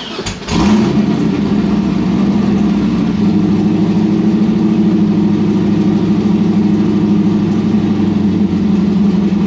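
Cammed 6.2-litre LS V8 fires up about half a second in and then runs steadily at a high idle. The idle screw is turned up to about 1400 rpm to keep the untuned engine running until it warms into loop.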